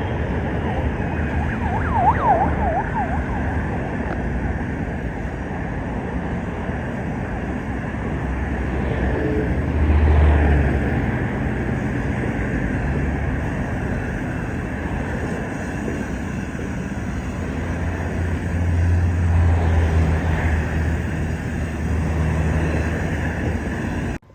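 Road traffic: a steady wash of vehicle noise, with low rumbles swelling about ten seconds in and again near twenty seconds. A brief warbling tone sounds about two seconds in.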